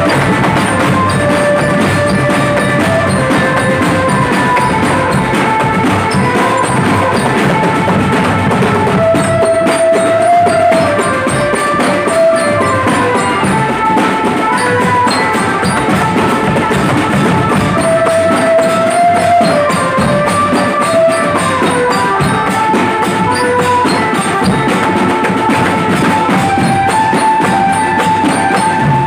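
Indonesian drum band playing live: marching bass drums and snare and tenor drums beating a dense, steady rhythm under a melody of held notes that step up and down.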